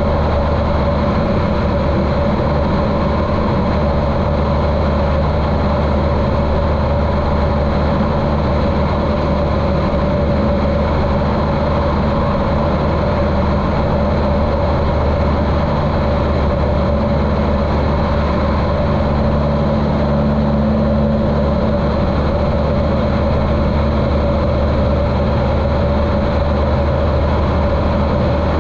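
Continental O-200 four-cylinder air-cooled engine of a 1973 Cessna 150L running steadily in flight, its propeller drone muffled through a GoPro's waterproof case.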